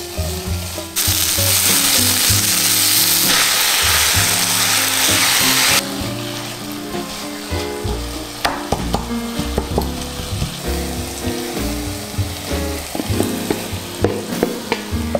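Poblano pepper strips sizzling in a hot frying pan, loudest for about five seconds near the start and cutting off suddenly, then a wooden spatula stirring and clacking against the pan over a quieter sizzle.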